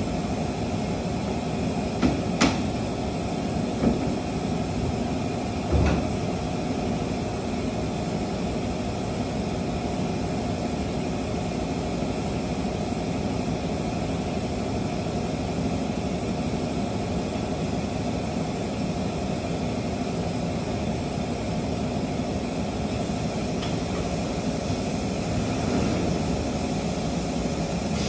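Steady drone of workshop machinery, with four sharp knocks about two to six seconds in.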